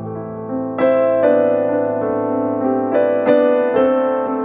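Background piano music, a slow melody over sustained chords with new notes struck every second or so.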